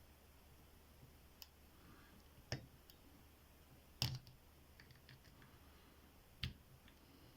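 A handful of faint, sharp clicks, a few seconds apart, from small lock picks working the pins of a 30mm Rockfort padlock as it is single-pin picked. The loudest click comes about four seconds in.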